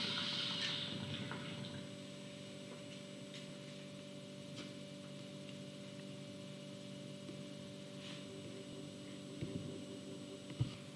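Faint sounds of a water bong being smoked over a steady electrical hum: a brief hiss near the start, faint bubbling about eight seconds in, and a couple of light clicks near the end.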